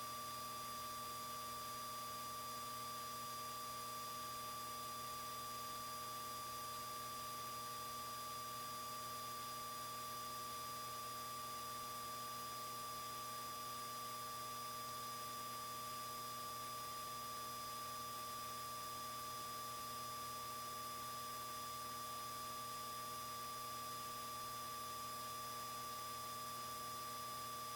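Steady electrical hum and whine with a faint hiss from a light aircraft's intercom audio feed, holding several fixed tones without change.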